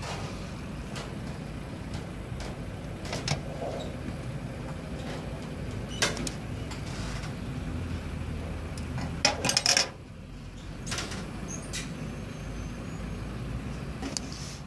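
A motor vehicle's engine idling steadily, with scattered clicks and knocks and a louder clatter of knocks a little before ten seconds in.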